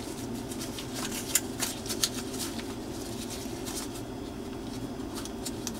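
Light, irregular clicks and scrapes of gloved hands twisting a plastic drain piece onto a kitchen sink strainer basket, over a steady low hum.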